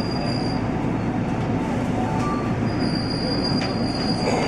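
Electric commuter train running, heard from inside the front car: a steady rumble of wheels on rail, with a high thin wheel squeal briefly at the start and again for over a second about three seconds in.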